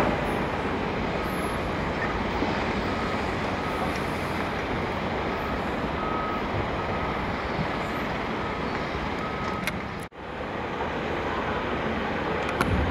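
Steady rumbling noise on a railway station platform, with a faint electronic beep repeating about once a second. About ten seconds in, the sound cuts out for an instant.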